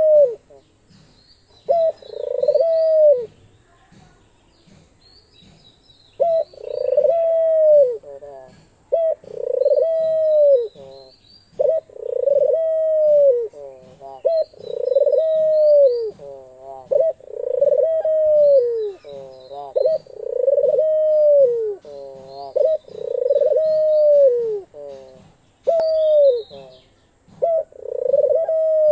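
Dove, an 'Australian dove', cooing over and over: about a dozen calls of roughly a second each, each dropping in pitch at the end, with a pause of a couple of seconds early on. Faint high chirps of small birds sound between the coos.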